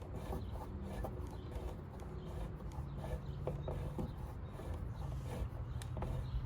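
Hand rivet-nut tool being unscrewed from a freshly set rivet nut: a run of small, irregular metal clicks and creaks, over a faint low hum.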